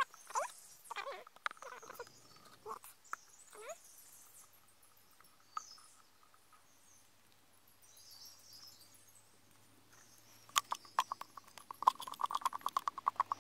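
A wooden stick stirring wet plaster of Paris in a cut-off plastic bottle, scraping and knocking against the bottle's walls. About ten seconds in it turns to a fast run of sharp clacks as the stirring speeds up.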